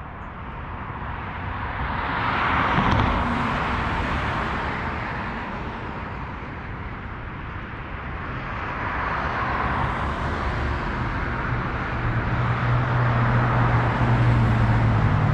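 Road traffic on a city street: cars passing, their noise swelling about three seconds in and again around ten seconds, with a low engine hum building over the last few seconds.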